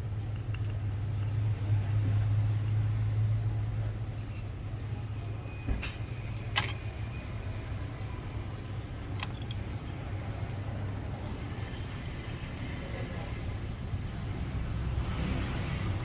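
A few small sharp clicks of metal tweezers and a prying tool against the iPhone 7 Plus's parts as its cable connectors are worked loose, the sharpest about six and a half seconds in, over a steady low hum.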